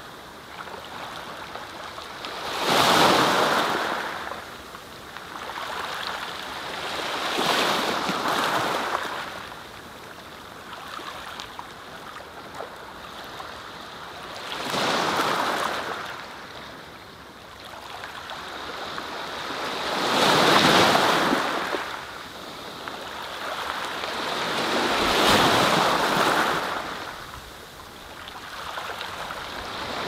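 Small sea waves breaking and washing up a sandy beach, each surge of surf swelling and fading, one every five seconds or so.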